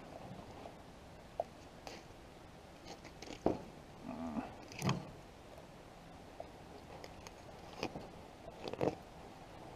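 Fillet knife cutting a walleye on a wooden canoe paddle: scattered crunching and scraping clicks as the blade works along the bones, loudest about five seconds in.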